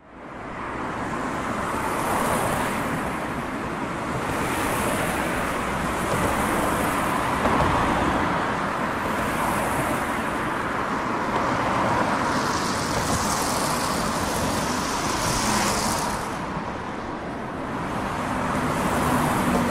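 Dense motorway traffic: a steady rush of tyres and engines, with passing vehicles swelling in and out every couple of seconds.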